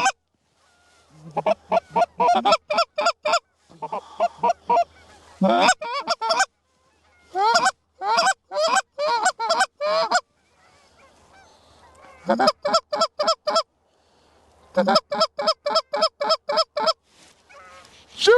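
Goose calling: loud, rapid honks and clucks, several a second, in bursts of a second or two with short pauses between.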